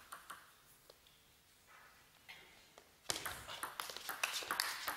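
Table tennis ball clicking off rackets and the table in a quick run of sharp taps, starting about three seconds in after a near-quiet pause.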